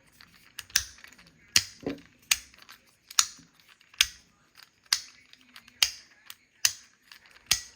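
Snap Cart magnetic fidget slider being slid back and forth, snapping to each end with a sharp click about once every 0.8 seconds.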